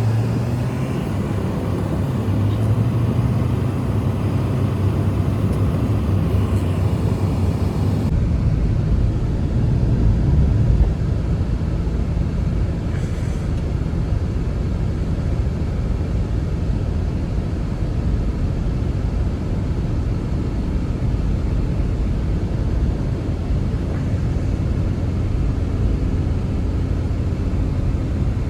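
Strong blizzard wind making a steady low rumble, with a cut about eight seconds in where the sound shifts to a duller, deeper roar.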